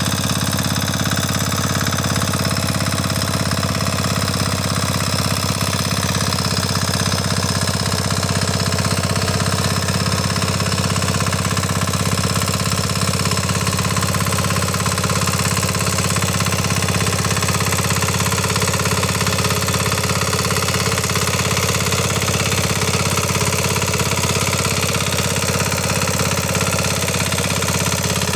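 Kama 9 hp single-cylinder diesel engine of a walk-behind power weeder running steadily under load while its rotary blades till wet paddy soil.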